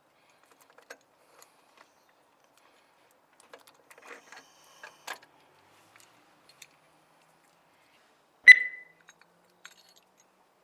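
Metal tools and small parts being handled during scooter maintenance: sparse light clicks and rattles, then one sharp metallic clink that rings briefly, about two-thirds of the way in.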